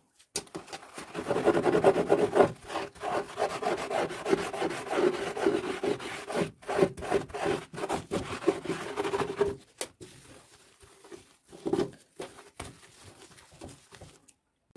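Cloth rag rubbing back and forth over a gas stove hob and burner, wiping off degreaser foam: steady scrubbing for about nine seconds, then a few lighter, scattered wipes.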